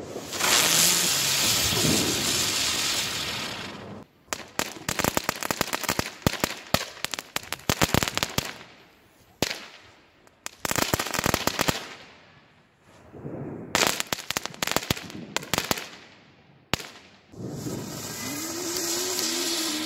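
Small consumer (F1) ground fireworks. A spark fountain hisses steadily at first. From about four seconds in come several seconds of rapid crackling, then a shorter burst of crackling and a single pop. Near the end another fountain hisses, with a faint wavering whistle in it.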